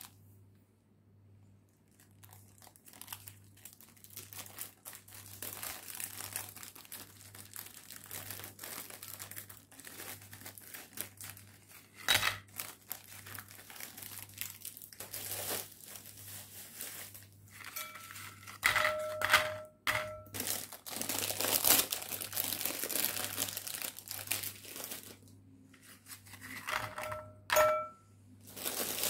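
Plastic wrapper on a stack of biscuits crinkling and tearing as it is opened and handled. Dry biscuits are set down into a ceramic bowl with sharp clicks, and the bowl rings briefly a few times, most plainly about two-thirds of the way through and again near the end.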